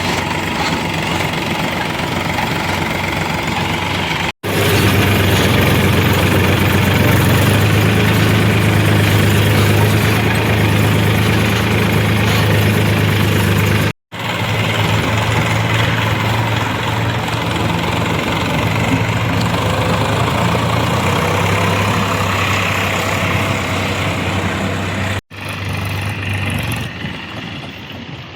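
Heavy diesel machine engine running hard with a steady low drone, heard in several clips joined by three abrupt cuts, about four, fourteen and twenty-five seconds in. It is loudest in the middle stretches and quieter over the last few seconds.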